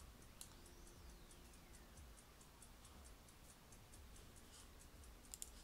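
Near silence: quiet room tone with a faint, even ticking, and a few sharper clicks near the end.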